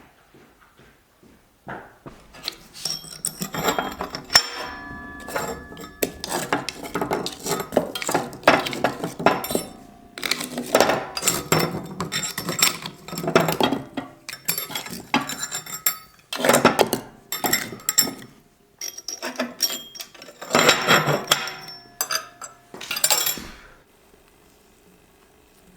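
Pots, dishes and utensils clattering and clinking, with short metallic ringing after some strikes. It starts about two seconds in, goes on in busy clusters, and stops near the end.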